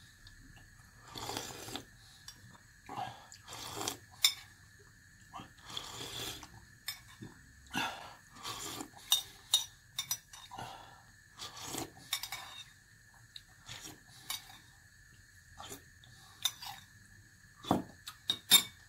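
Metal spoon clinking and scraping against a ceramic soup bowl at irregular intervals, with sips of soup slurped from the spoon in between.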